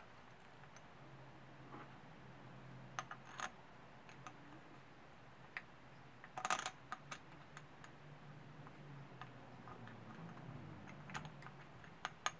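Small metallic clicks and taps as an aluminium intake manifold and its bolts are handled and fitted onto a pit bike engine's cylinder head, with a quick flurry of clicks about six and a half seconds in. A faint low hum runs underneath.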